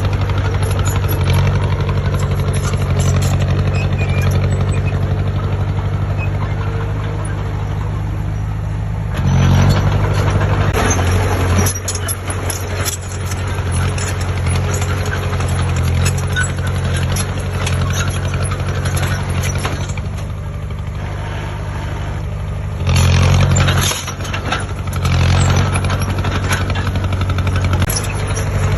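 Heavy diesel engine of construction machinery running steadily, with brief louder surges about nine seconds in and twice more near the end.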